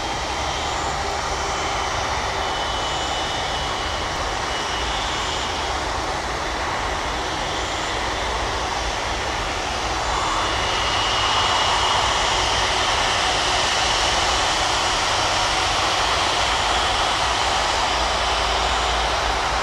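Airbus A330-200F freighter's two Rolls-Royce Trent 772B turbofans running at taxi power: a steady jet whine with a high tone, growing a little louder about ten seconds in as the aircraft swings around to face the listener.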